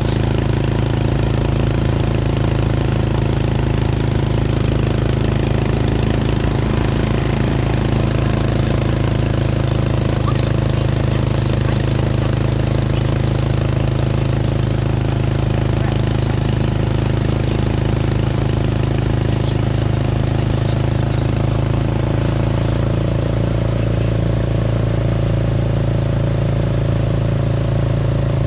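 Mini train's engine running steadily, heard from aboard as a constant low drone with no change in pace.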